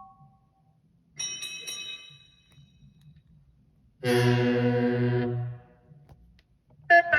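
Cartoon train-engine whistle and horn sound effects, one after another: a short bright ringing toot about a second in, a long low horn blast with a hiss at its start about four seconds in, lasting about a second and a half, and another whistle starting sharply near the end.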